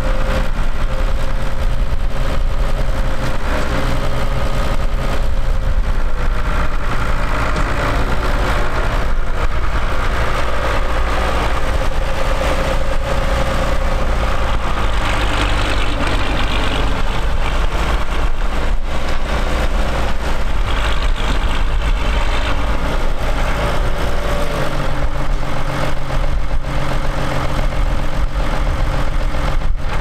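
Ford tractor's diesel engine running steadily at low revs, its note shifting a little a few times, notably about two thirds of the way in.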